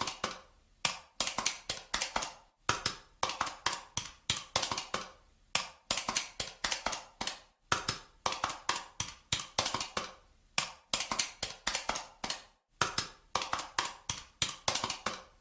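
Calculator keys being pressed: quick runs of sharp clicks, each run of several key presses broken by a brief pause, as when numbers are punched in.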